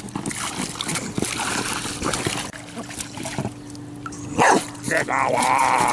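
A black dog on a pool float barks and growls as it snaps at splashing water, with a sharp bark about four and a half seconds in. Water sprays and splashes throughout.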